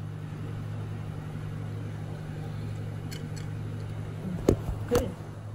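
A low steady hum, with two sharp clinks of metal cutlery against a plate near the end, half a second apart.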